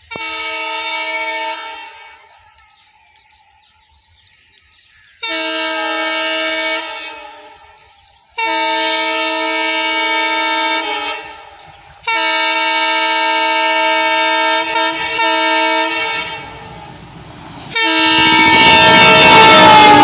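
WDM-3D ALCO diesel locomotive sounding its horn in five long blasts separated by short gaps, each lasting between one and four seconds. The last blast, near the end, is the loudest, with the locomotive's engine and wheel noise rising beneath it. Its pitch dips slightly as the locomotive passes.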